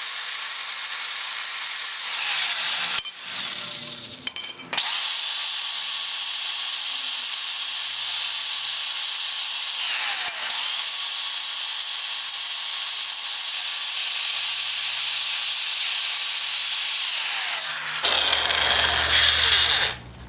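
Power tool spinning an abrasive pad against a metal strut bar mount, scuffing off old paint and rust with a steady hiss and whine. It stops about three seconds in, with a few clicks, then starts again; near the end the sound changes.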